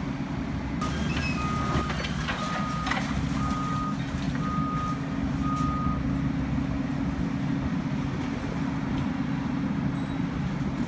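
Diesel engines of heavy demolition excavators running with a steady low drone, while a site machine's reversing alarm beeps about six times, stopping about six seconds in. A few sharp knocks sound in the first three seconds.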